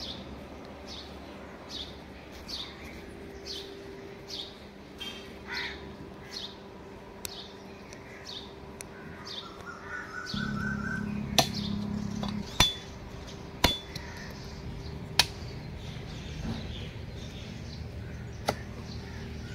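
A bird chirping over and over, short high calls a bit more than once a second. In the second half, a handful of sharp knocks a second or more apart: a heavy cleaver striking goat trotters on a wooden tree-stump block.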